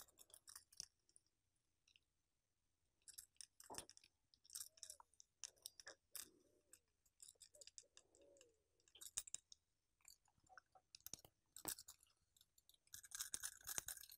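Faint, scattered small metal clicks of a fishing swivel and the hardware of a propeller lure being handled and fitted by hand, with a denser run of clicking near the end.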